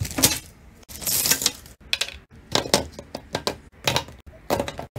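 Plastic acrylic paint bottles and tubes knocking and clattering together as a hand sorts through a pile of them, in quick irregular clacks.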